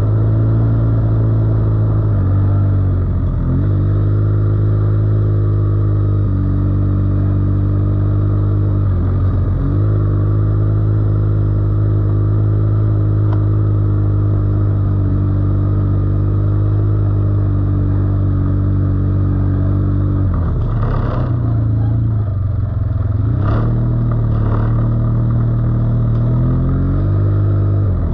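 ATV (quad bike) engine running steadily while riding a trail, its note dipping and coming back up several times as the throttle eases and opens again. A few clattering knocks come about two-thirds through.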